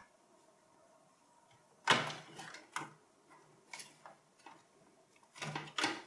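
Plastic CPU cooler air duct in a small form factor desktop PC being unclipped and lifted out by hand. A scraping rustle about two seconds in, a few light clicks, then more scraping and clicks near the end as it comes free of the case.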